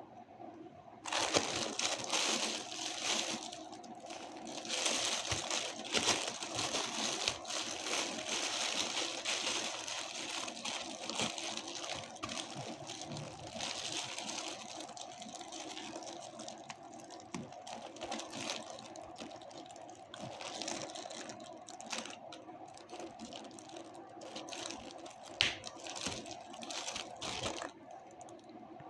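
Plastic packaging crinkling and rustling as it is handled, with many small clicks and taps, over a faint steady hum.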